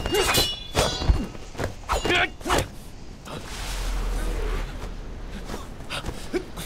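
Martial-arts fight sound effects: several quick whooshes of swinging robes and blows landing with thuds in the first three seconds, mixed with short grunts. Then a softer, steady rushing swell about four seconds in.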